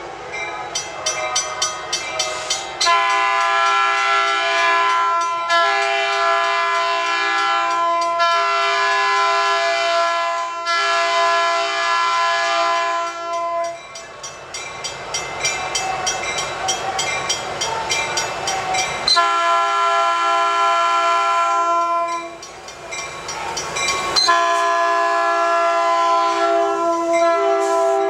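Locomotive multi-chime air horn sounding a series of long blasts as a train passes: about four blasts back to back, a few seconds of rolling train noise, then two more long blasts.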